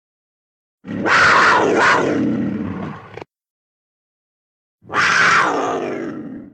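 Two separate Smilodon (sabre-toothed cat) creature sound effects: a big-cat vocalization of about two and a half seconds starting about a second in, then a shorter one near the end. Each starts loud and fades, with dead silence between them.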